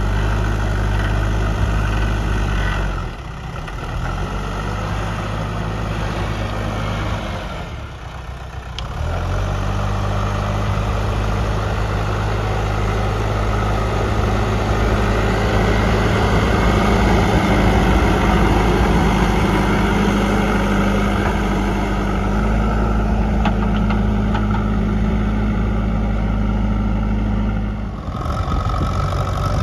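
JCB 3DX backhoe loader's diesel engine running steadily, with brief dips in level about three seconds in, around eight seconds, and near the end.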